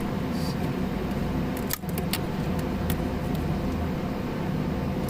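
Steady low mechanical hum from the BMW X3's engine bay, with a few sharp clicks and rattles about two seconds in as the purge valve's loose connector and nearby parts are handled.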